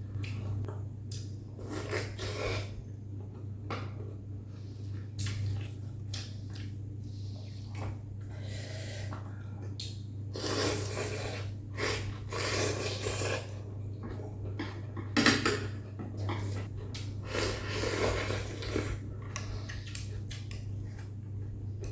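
A person eating bún mắm noodle soup: utensils clink and scrape against the bowl between bouts of chewing. A steady low hum runs underneath.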